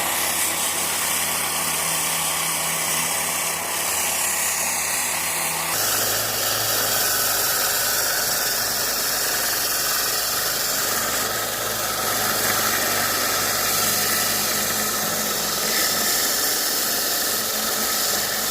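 Central Machinery 1 x 30 inch benchtop belt sander running steadily while it sands the end of a short piece of 2x4. About six seconds in the sound changes abruptly to a louder, hissier sanding noise, and the motor hum drops to a different pitch.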